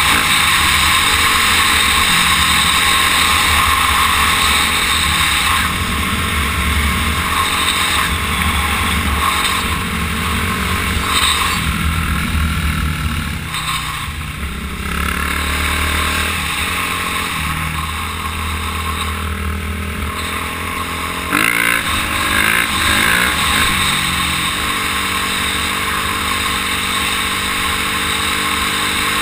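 Dirt bike engine running at speed under a helmet camera, with heavy wind rush over the microphone. The engine pitch shifts up and down with throttle and gear changes, and about two-thirds of the way through the level jumps and the pitch swings up and down as the rider works the throttle.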